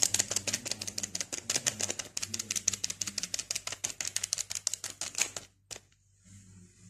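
Plastic-foil coffee-mix sachet being shaken and tapped as the powder spills out: a rapid, even run of crinkly clicks that stops about five and a half seconds in.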